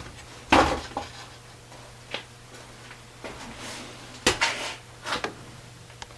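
Scattered light metallic clinks and knocks, about seven in all and irregularly spaced, as tools and hardware are handled and set down, over a faint steady low hum.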